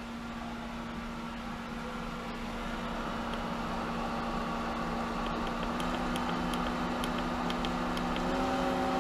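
Hayward Super Pump VS variable-speed pool pump running with a steady hum that climbs in pitch and loudness as its speed is stepped up from 2000 RPM towards 2250 RPM. A run of light clicks comes in the second half.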